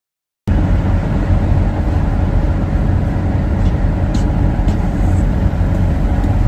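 Steady low rumble of a moving vehicle, cutting in abruptly about half a second in.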